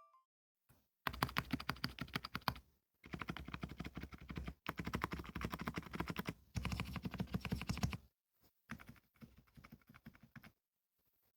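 Fast typing on a Qsenn Q104LCD Shooting Star mechanical keyboard fitted with MMD silent Princess linear switches, in four quick runs with brief pauses between them, then a lighter, sparser run that stops about a second before the end.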